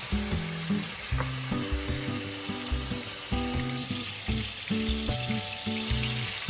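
Food sizzling as it fries in oil in a pan, a steady hiss that comes in abruptly and dies away near the end.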